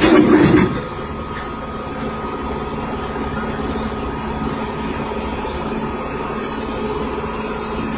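An engine running steadily, a constant hum with a few held tones. A brief louder sound with a shifting pitch comes in the first second.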